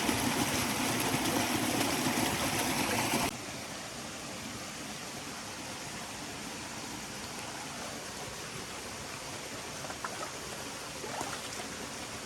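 Stream water flowing in a steady rush. It is louder for the first three seconds, then cuts suddenly to a quieter, even flow, with a couple of faint clicks near the end.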